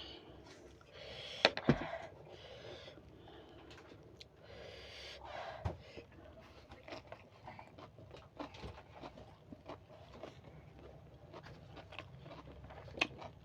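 Someone eating close to the microphone: mouth noises and chewing broken by a few sharp clicks and knocks, the loudest two about a second and a half in.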